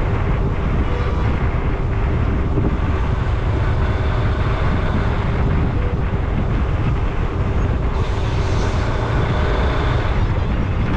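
Steady rumble of a vehicle travelling along a highway, with wind buffeting the microphone throughout.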